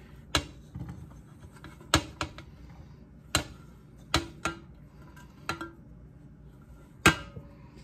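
Light, irregular clinks and knocks of a speckled enamelware plate against a bowl and the counter, with fingers scraping chopped boiled egg off the plate into the bowl.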